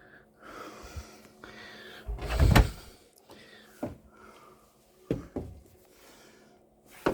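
A tumble dryer door being handled: one heavy thump a little over two seconds in, then three or four sharp clicks and knocks.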